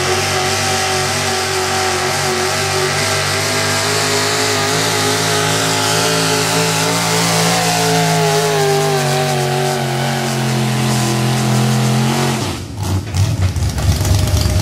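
Gas modified pull truck's V8 engine running at wide-open throttle as it hauls a weight-transfer sled, its pitch sinking over the last few seconds as the sled bogs it down. The engine note drops away abruptly about twelve seconds in, leaving a lower, rougher rumble.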